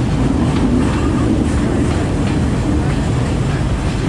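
Sri Lanka Railways S14 class diesel multiple unit running, heard from on board: a steady loud rumble with irregular clicks of the wheels passing over rail joints.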